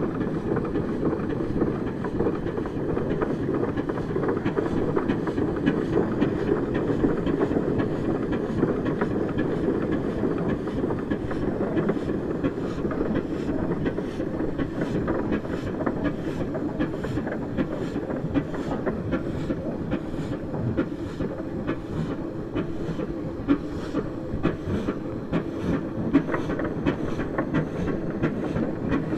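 1910 Minneapolis 22hp steam traction engine running and moving under its own steam: a steady mechanical din with an even, rhythmic clatter that grows more distinct in the second half.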